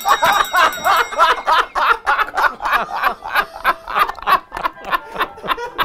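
Three men laughing hard together, a long unbroken run of quick laughs at about five a second.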